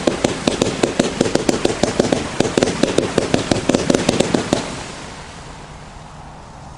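Miracle Fireworks 'All Trumped Up' fan cake firing a rapid volley of comet shots, several sharp reports a second. The volley stops about four and a half seconds in, leaving a fading hiss.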